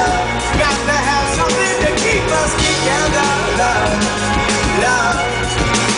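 Live pop-rock band playing with drums, guitar and a sung vocal line, loud and steady.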